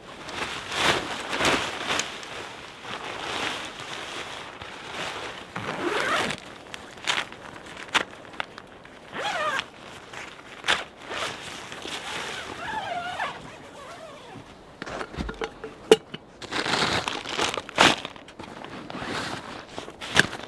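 Tent fabric and camping gear being handled: rustling and crinkling in uneven bursts, a zipper pulled, and crunching steps in snow, with several sharp clicks.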